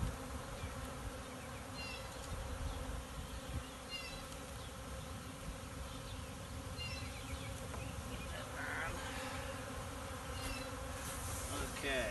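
Honeybee swarm of several thousand bees buzzing in a steady, continuous hum, with faint short high chirps repeating about every second and a half.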